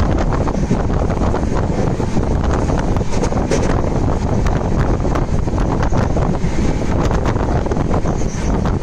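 Wind buffeting the microphone from outside a moving LHB passenger coach, over the steady rumble of the train running across a bridge, with many short clicks and clatters from the wheels and track.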